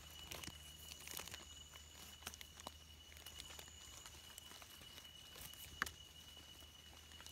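Faint scrapes and small clicks of a knife cleaning dirt off the stem of a freshly picked wild mushroom, with one sharper click a little before six seconds in, over a steady high-pitched whine.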